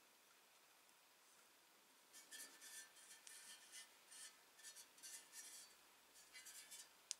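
Faint handling noise of a cleaned blowtorch's metal tank turned in the hands: short, irregular rubbing and scraping strokes starting about two seconds in, with a sharp click near the end.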